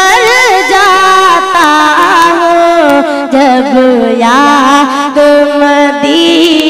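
A young boy singing a naat (Islamic devotional song) solo into a microphone, drawing out long ornamented phrases whose pitch bends and curls.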